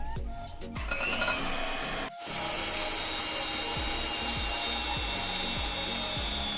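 Rubbing and scraping of a kitchen utensil against a bowl while dry flour ingredients are worked for a cake batter, over faint background music.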